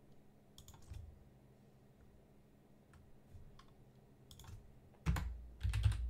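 Computer keyboard keystrokes: a few scattered key clicks, then a quicker, louder run of keys with a dull thump about five seconds in.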